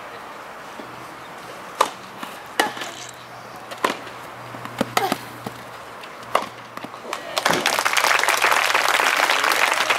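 Tennis rally: a racket strikes a tennis ball back and forth, about five sharp hits roughly a second apart. From about seven seconds in, crowd applause at the end of the point, louder than the hits.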